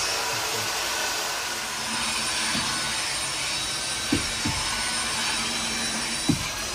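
A steady machine-like whirring hiss runs throughout, with a few light wooden knocks as short redwood boards are pressed into place by hand.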